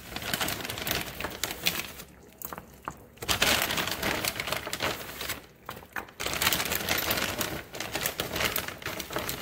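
Plastic bag of frozen meatballs crinkling as handfuls are pulled out and dropped into the sauce, in three stretches with short pauses between.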